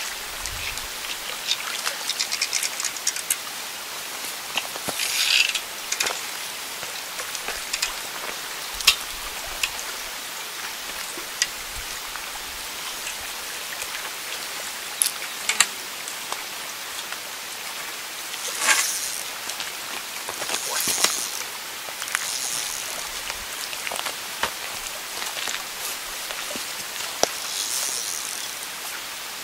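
Lakeshore ambience: a steady hiss of small waves lapping on a rocky shore, with scattered light clicks and a few short hissing bursts.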